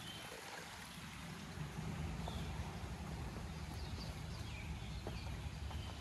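Quiet forest ambience: a steady low rumble under a few short, faint falling bird chirps.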